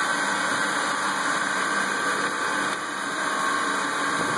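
CNC-converted Grizzly G4002 metal lathe running steadily with its spindle turning: an even machine hum with a faint whine.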